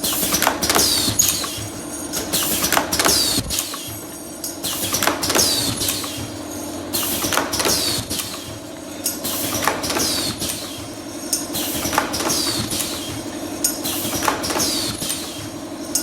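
Automatic face mask earloop welding machine running through its cycle: a steady hum under repeated mechanical clicks and clacks, with a short high falling sound about every two seconds as each mask is processed.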